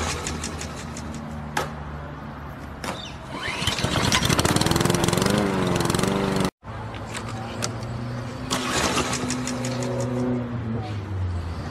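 Lawn mower pull-start sounds: a few sharp cord pulls, then the engine catching and running loudly. After a short dropout the sounds start over again.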